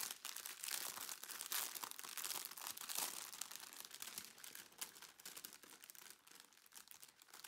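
Quiet, continuous crinkling and rustling of clear plastic packaging as a bag of small diamond-painting drill packets is opened and handled.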